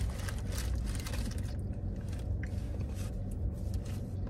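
Steady low rumble inside a car cabin, with faint scattered clicks and rustles from people eating chicken wings out of a takeout container.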